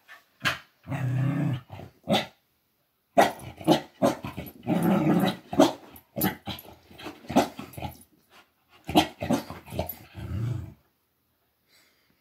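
Corgi growling and barking in short, excited bursts at a toy. It stops about a second and a half before the end.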